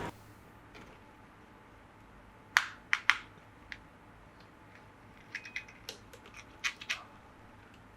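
Sharp clicks and taps of plastic packaging and model parts being handled: three loud snaps about two and a half to three seconds in, then a run of lighter clicks a few seconds later.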